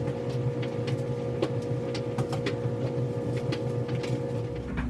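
Steady mechanical hum with a pitched tone, overlaid by scattered light clicks and knocks of things being handled. The higher tone in the hum cuts out near the end.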